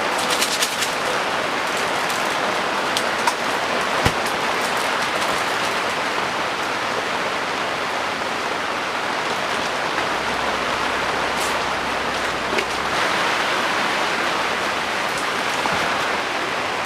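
Heavy rain falling steadily, with a few sharp drip-like ticks near the start and a single knock about four seconds in.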